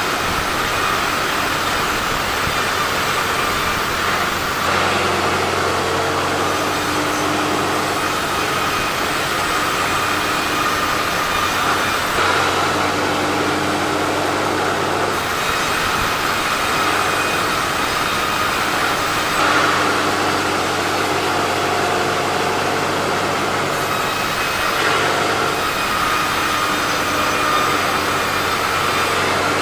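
Powered sawmill saw running steadily as it cuts teak logs. A mechanical hum with a noisy whir on top changes character every several seconds.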